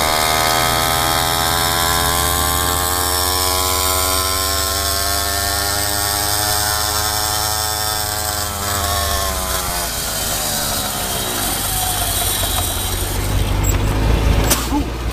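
Pocket bike's small engine buzzing at high revs, its pitch sinking slowly and then dropping away as the bike slows, over a low rumble of wind on the microphone.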